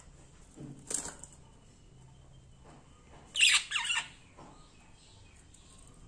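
Pet budgerigar fluttering its wings in a wire cage: a soft rustle about a second in, then a louder flurry of wing beats in two quick bursts about three and a half seconds in as it flies up to a higher perch.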